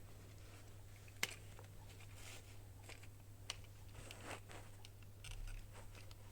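Quiet handling sounds of toy doll packaging being unboxed: scattered soft rustles and a few sharp clicks, the sharpest about a second in, over a steady low hum.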